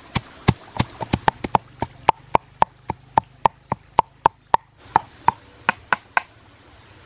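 Pestle pounding chilies, garlic and salt in a mortar: a steady run of sharp knocks, about four a second, stopping about six seconds in.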